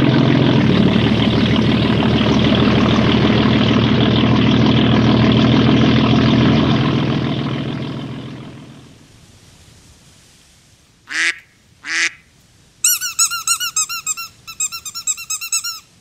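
A boat engine runs loud and steady, then fades away over about two seconds a little past the middle. After a lull a rubber duck squeaks twice, then squeaks in quick runs near the end.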